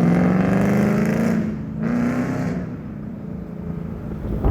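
Ford Mustang engine pulling hard, its note rising slowly over the first two seconds, then fading away as the car moves off.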